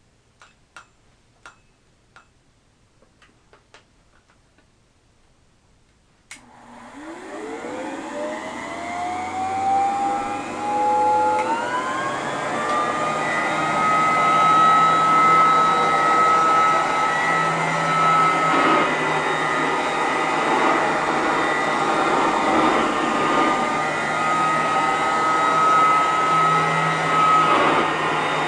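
Antique Clements Manufacturing Cadillac upright vacuum cleaner, a direct-air machine, switched on after a few light clicks: its motor spins up with a rising whine over several seconds, then runs steadily with a high whine over a broad rushing of air.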